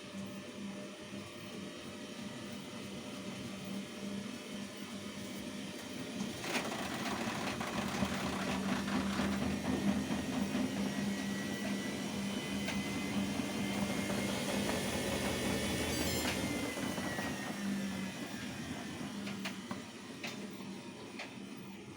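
Samsung washing machine's motor running the drum with a steady hum. It grows louder and busier, then a whine rises in pitch as the drum speeds up, and the whine falls again as it slows down.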